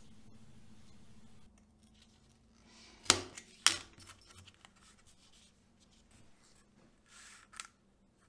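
Small craft parts and tools handled on a cutting mat: two sharp clicks about half a second apart, a few fainter ticks, then a soft brief rustle near the end.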